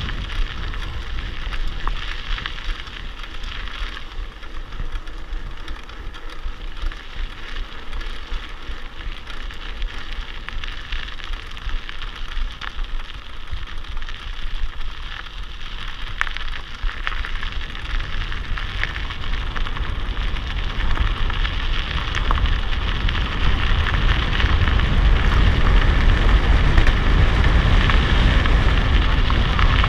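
Mountain bike descending a dry dirt-and-gravel road, picked up by a handlebar-mounted camera: a steady crackling of tyres on grit with small rattles and clicks from the bike, and a low rumble that builds in the second half.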